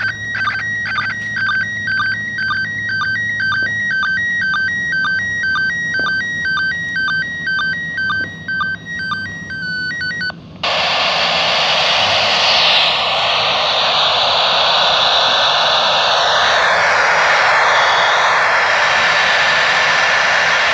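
Slow-scan television (SSTV) signal from the International Space Station heard through an ICOM IC-2GAT handheld FM radio: a warbling run of tones that repeats about twice a second. About ten seconds in the signal cuts off abruptly and the radio gives out a loud, steady static hiss.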